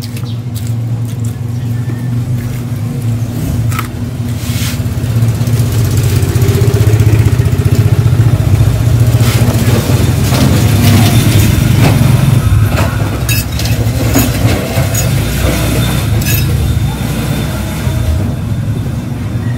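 A motor vehicle's engine running close by, growing louder about five seconds in and easing off again near the end, with a few light clicks over it.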